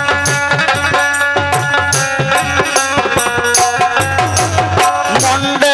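Instrumental interlude of a Bundeli folk song: hand drums beat a steady rhythm with shaken jingles, under a melody instrument playing the tune in held notes.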